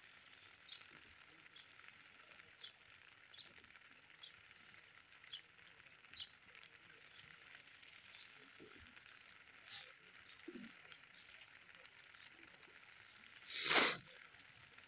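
Quiet outdoor ambience: a steady hiss with short high chirps of small birds coming every half second or so, and one brief loud noise near the end.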